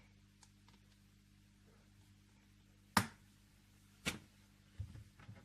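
Wallets being handled on a table: two sharp clicks about a second apart, the first the loudest, then a few fainter taps near the end, over a faint steady hum.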